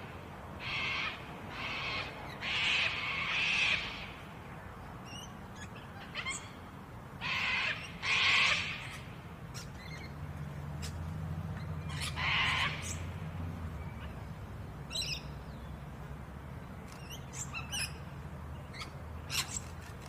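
Lorikeets giving short, harsh screeching calls, several in quick succession in the first few seconds and again around the middle. Thin high chirps are scattered through the rest, over a faint low hum in the second half.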